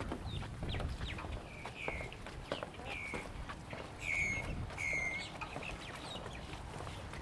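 A bird calling repeatedly: a series of short calls, each dipping slightly in pitch, the loudest two about four and five seconds in.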